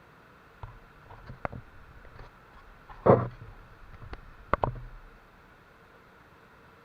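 A short run of knocks and clatters, with one louder thump about three seconds in and two sharp knocks a little later, over a faint steady hiss.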